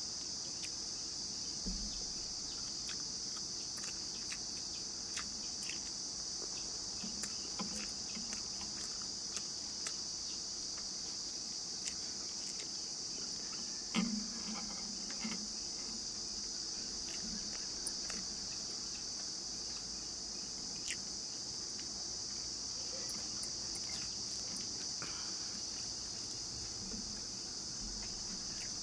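A steady, high-pitched insect chorus of crickets, with faint wet mouth clicks and smacks from eating rice by hand scattered over it, and one sharper knock about halfway through.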